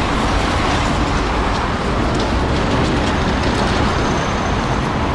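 Loud, steady rumble and noise of passing vehicles.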